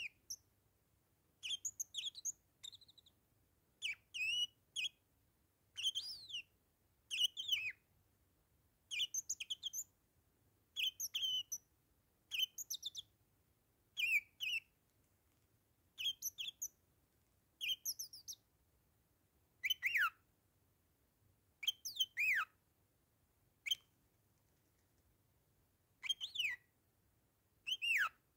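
Bourke's parakeet chirping: a short group of quick, high chirps that glide up and down, repeated every second or two.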